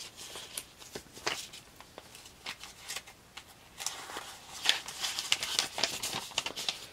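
Trading cards being handled: light rustling and small clicks, sparse at first and busier over the second half.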